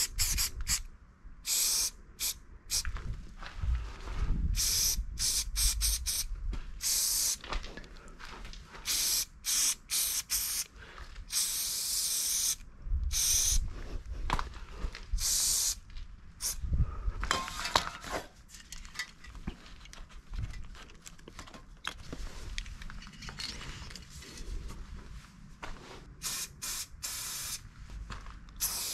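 Aerosol spray paint can spraying in many short hissing bursts, some well under a second and a few about a second long, starting and stopping with short pauses between.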